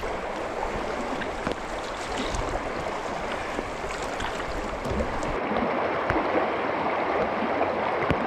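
Fast river current rushing and churning steadily around a paddled canoe, with the occasional splash of a paddle stroke. About five seconds in, the hiss of the water turns duller.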